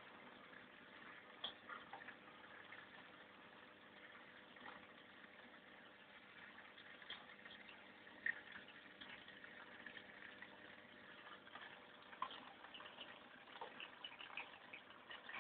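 Faint water sounds from an aquarium of African clawed frogs: small splashes and scattered light clicks over a low hiss, with a few sharper clicks.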